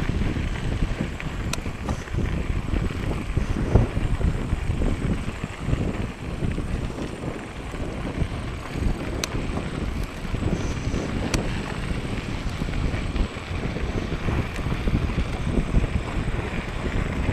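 Wind buffeting the microphone of a camera carried on a moving mountain bike, a steady rumble with the tyres rolling over a gravel path. A few light, sharp clicks come through now and then.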